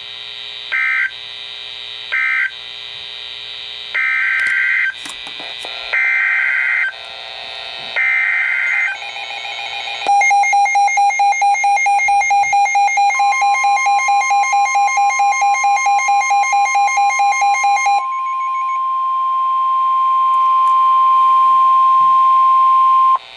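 Emergency Alert System tones. First come three short screeching digital data bursts, the end-of-message code of the blizzard warning, then three longer data bursts, the header of the next alert. A rapidly pulsing buzzy alert tone follows, and a steady high NOAA Weather Radio warning tone joins it partway through and continues alone for several seconds.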